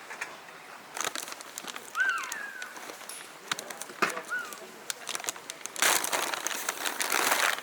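Scattered clicks and handling noises with two short bird calls, about two and four and a half seconds in. Near the end comes a stretch of crinkling rustle.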